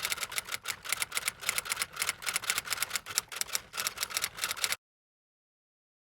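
Fast, even typewriter-style key clicks, several a second, of an added typing sound effect; they stop abruptly a little under five seconds in, leaving dead silence.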